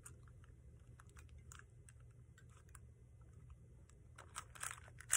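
Dunkin'-branded plastic 3x3 puzzle cube being turned by hand: faint scattered clicks of the layers turning, becoming quicker and louder clicking near the end.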